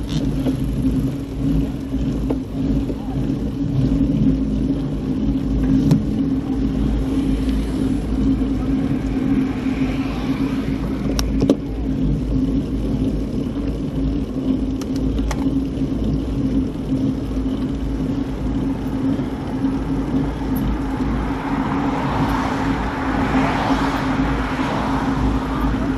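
Motorcycle engine running at a steady cruising speed under continuous wind and road rumble. A hissing rush swells near the end.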